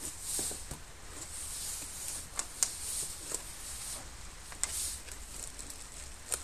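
Small cardboard battery box being handled and opened: cardboard rustling and scraping, with several sharp clicks and taps.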